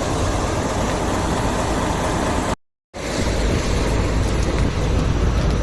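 Steady road and engine rumble of a car being driven, heard from inside the cabin. About halfway through it cuts out completely for a moment, a break in the recording, then carries on unchanged.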